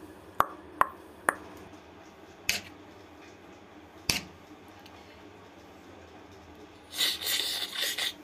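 A few light clicks and taps of paper and objects being handled, then, about seven seconds in, a loud crinkling rustle of a foil instant-coffee sachet being opened and its powder shaken out.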